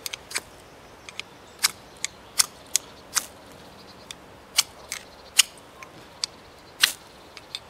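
Carbon-steel bushcraft knife spine scraped down a ferrocerium rod: a dozen or so short, sharp rasping strokes, spaced unevenly. The spine's chamfered edge makes it hard to strike sparks.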